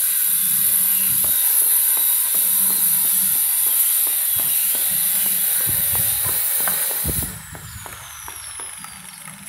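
Electric angle grinder cutting stone paving tiles: a loud, steady high hiss that cuts off about seven seconds in, after which the disc's whine falls away as it spins down. A few low knocks come just before it stops.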